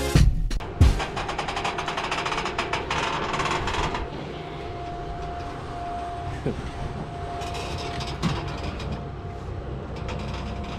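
Battery-electric Mean Green stand-on mower being driven across a trailer: a fast rattling clatter for the first few seconds, then a steady high whine from its electric motors over a low rumble, with no engine noise. Very quiet for a mower.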